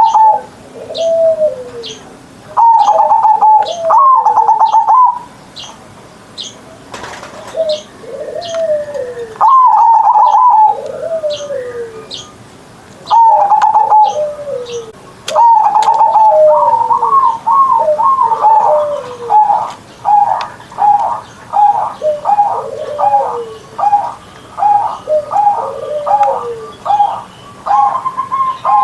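Perkutut (zebra dove) cooing over and over, each phrase a higher note followed by a lower falling note. About halfway through the phrases come quicker and closer together. Faint high chirps of another small bird sit behind it.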